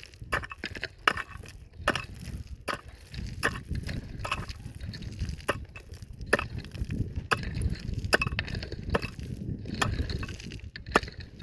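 A hand tool striking repeatedly, sharp knocks at an uneven pace of one to two a second, over a steady low rumble.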